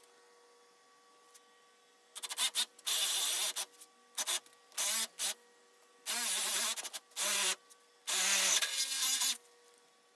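Cordless drill with a spade bit boring a hole into the edge of a solid-wood door, run in several bursts of about half a second to a second and a half each with short pauses between. The bursts start about two seconds in and stop shortly before the end.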